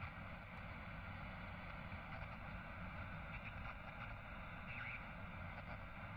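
Steady, faint background noise with a low rumble and no clear pattern.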